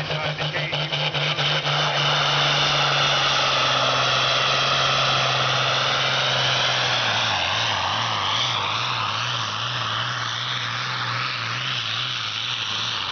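International Harvester 5488 pulling tractor running hard under load as it drags the weight sled down the track. There is a high whine that sweeps up and down, and the engine note drops and wavers about halfway through as it labours.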